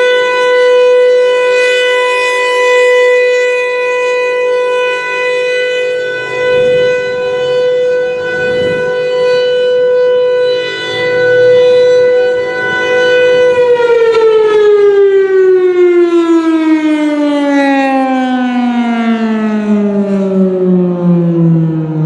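Federal Signal Thunderbolt 1000 outdoor warning siren sounding its steady alert tone, the level swelling and fading a little. About 13 seconds in, the tone stops being held and slides steadily down in pitch as the siren winds down at the end of the alert signal.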